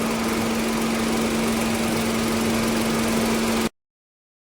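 Volkswagen Polo engine idling steadily with a constant hum, running without misfire after a new spark plug cleared the cylinder-1 misfire. The sound cuts off abruptly near the end.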